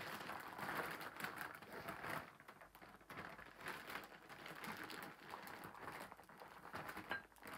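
Clear plastic bag crinkling and rustling in irregular crackles as hands rummage through it and pull an item out.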